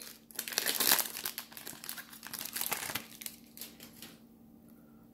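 Plastic wrapper of a trading-card pack being crinkled and torn open, a dense crackling that dies away about three and a half seconds in.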